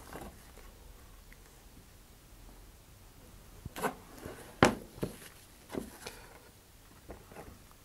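Handling sounds: gloved hands moving and turning a cardboard model rocket on a cutting mat. After a quiet first few seconds come a few short knocks and rubs, the sharpest about four and a half seconds in.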